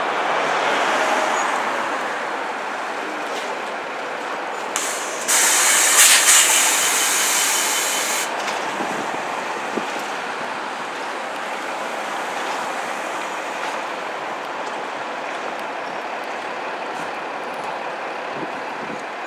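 New York City transit bus running as it pulls through the intersection, with traffic noise. About five seconds in, a loud hiss of air starts suddenly and cuts off about three seconds later, typical of the bus's air brakes releasing.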